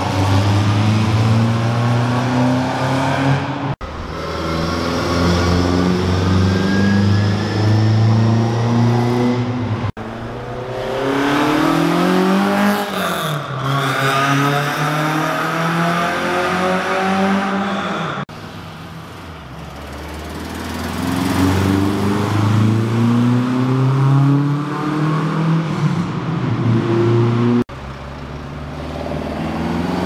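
Classic rally cars accelerating past one after another, their engines revving and rising in pitch, with one car's note rising then dropping as it goes by. Most passes are in a road tunnel.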